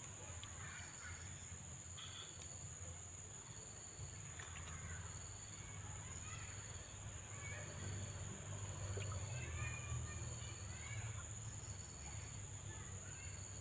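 Steady high-pitched insect chorus, with faint bird chirps here and there and a low hum underneath.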